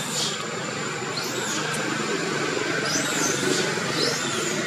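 Outdoor background ambience: a steady low murmur, with a thin steady high tone and several short high chirps about a second apart.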